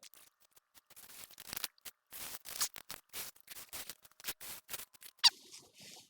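Soil and foliage scraped and rustled in irregular strokes as a sweet potato plant is dug up, with one short, high squeak falling in pitch about five seconds in.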